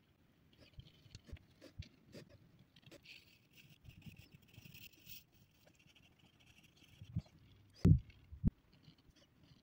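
Faint scratching of a graphite pencil shading on paper, with light pen strokes and ticks, then two sharp knocks near the end.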